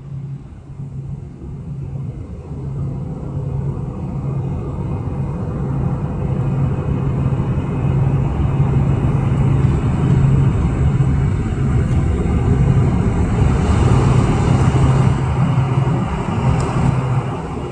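Boeing 747-400 cabin noise on approach: engine rumble and rushing airflow heard inside the cabin, growing louder over the first several seconds and then holding steady, with a low pulsing drone.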